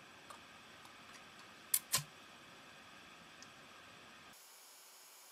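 Two sharp clicks about a quarter second apart, near two seconds in, with a few fainter ticks before and after, over the steady faint hiss of a webcam microphone.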